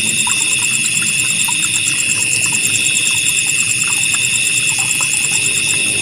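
A chorus of crickets and other insects trilling without pause: several steady high-pitched trills layered together, one of them a very fast even pulsing. A low rush of flowing water with small scattered plinks runs underneath.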